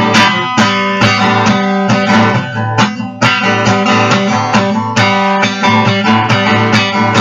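Acoustic guitar strumming chords in a steady rhythm, about two strums a second, as an instrumental break with no singing.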